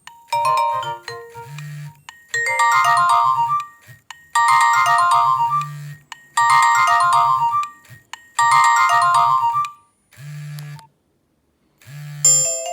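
Nokia 1600 mobile phone playing a ringtone through its small loudspeaker: a short melody repeated about every two seconds, with a low buzz pulsing beneath it. The tone stops about ten seconds in, and after a brief pause the next ringtone starts near the end.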